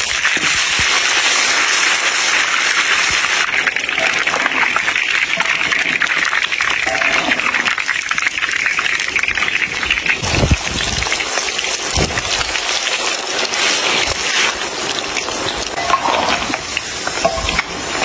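Watermelon juice and pulp sizzling and bubbling in a hot wok while a metal spatula stirs through it. The sizzle is loudest in the first few seconds. There are a couple of dull knocks around ten and twelve seconds in.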